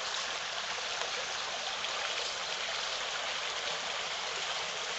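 Small clear mountain stream flowing over rocks: a steady rushing burble of water.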